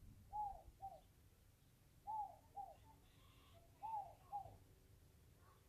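A bird calling a two-note phrase three times, each phrase two short notes that rise and fall in pitch, coming about every two seconds.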